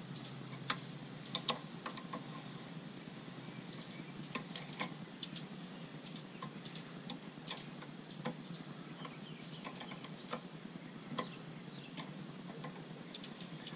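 Scattered light metallic clicks and ticks of a wrench working the 10 mm bolts on a longtail mud motor's shaft coupler, at irregular spacing.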